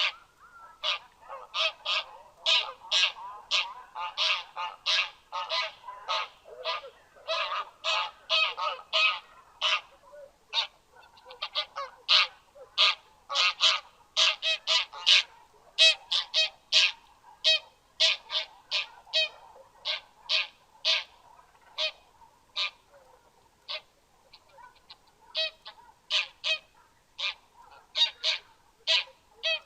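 Geese honking: many short, loud calls in quick succession, often overlapping, as from several birds at once, with softer calls underneath.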